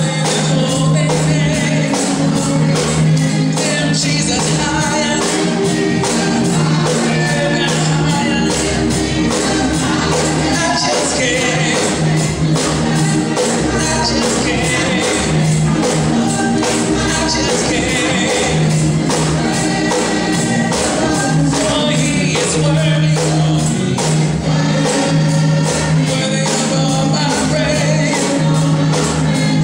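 Church choir singing a gospel song, with a tambourine and hand claps keeping the beat over instrumental accompaniment.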